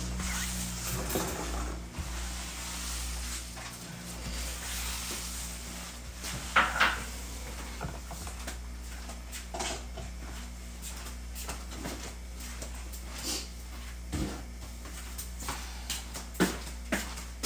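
Kitchen handling noises: scattered knocks and clinks of dishes and utensils being moved on the counter, with two louder clatters about six and a half seconds in and a quick run of sharp clicks near the end, over a steady low hum.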